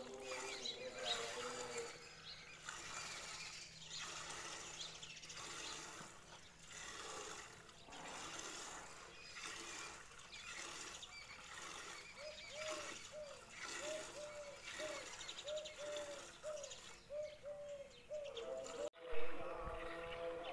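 A cow being milked by hand into a steel bucket: squirts of milk hiss into the pail in a steady rhythm. From about halfway through, a bird calls a short repeated note about twice a second, and a single thump sounds near the end.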